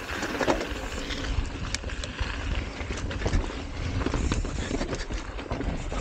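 A 2021 Knolly Tyaughton steel hardtail mountain bike rolling down a rough dirt and rock trail: a steady rumble of tyres on the ground with frequent irregular clicks and rattles from the bike.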